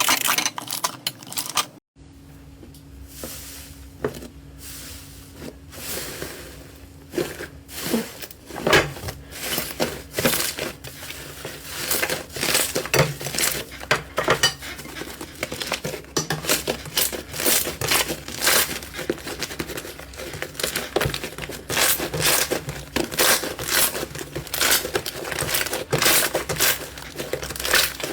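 Slime being squeezed and pressed, giving a dense run of sharp crackles and pops. It cuts out briefly about two seconds in, then carries on over a faint steady low hum.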